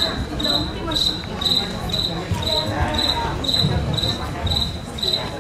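A cricket chirping steadily, about two short trilled chirps a second, over a low background murmur.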